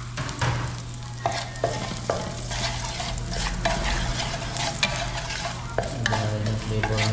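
Food frying in hot oil in a pan: a steady sizzle with scattered crackles and pops.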